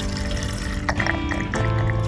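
Background music with held notes that change twice, over a steady hiss.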